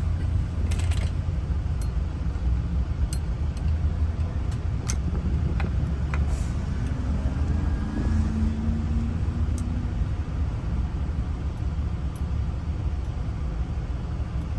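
Steady low vehicle rumble, with a few faint small clicks from lock parts being handled and fitted together.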